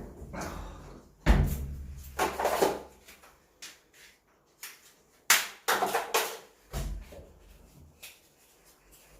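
A series of sharp knocks and clunks of hard objects being handled, with a heavy thump about a second in and a quick run of clicks and knocks past the middle.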